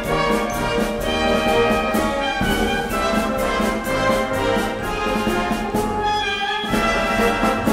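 Orchestral music with brass playing held chords that change every second or so.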